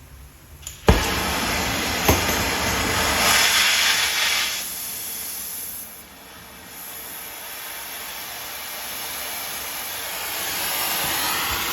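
Gas torch lit with a sharp pop about a second in, then burning with a steady hiss as it heats steel square stock toward cherry red. There is a second click about two seconds in, the hiss is loudest around three to four seconds, and it dips briefly near six seconds.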